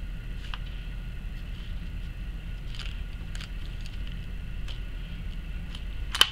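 Steady room hum with faint scattered ticks from hands pressing a clay coil onto a pot, and one sharp click near the end.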